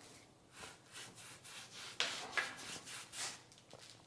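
A pure-bristle brush spreading lime mortar mixed with fixative onto painted plasterboard: a series of soft, brushy strokes, about two a second, the sharpest about two seconds in. This is the first base coat laid down to make the smooth board take Tadelakt.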